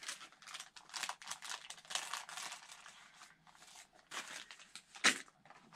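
Packaging crinkling and rustling as it is handled, a quick run of irregular crackles, with one louder crinkle about five seconds in.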